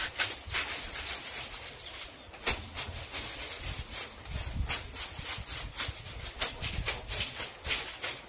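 A grass broom swept in quick strokes against the underside of a tiled roof, brushing off dirt and cobwebs. It gives rhythmic swishing at about three to four strokes a second, with a short break about two seconds in and a sharper click just after it.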